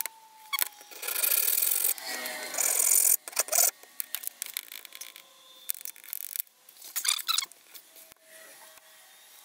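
A hacksaw cutting into the metal can of a Trustfire 18650 lithium-ion cell. It starts with a run of steady back-and-forth strokes in the first few seconds, then shorter, uneven strokes, and ends in lighter scraping.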